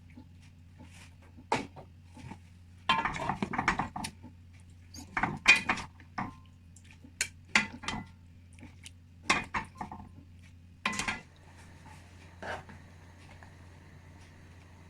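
Metal utensils clinking, knocking and scraping against cookware in irregular bursts, which stop about eleven seconds in. A steady low hum sits under them.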